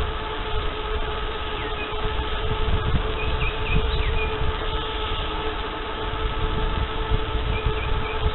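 Wind buffeting the microphone of a camera on a moving bicycle, a rough rumbling rush with a steady whine underneath. A few short bird chirps come about three seconds in and again near the end.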